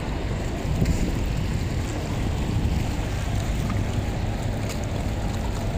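Wind blowing on the microphone, a steady low rush, over the wash of water against a rocky seawall.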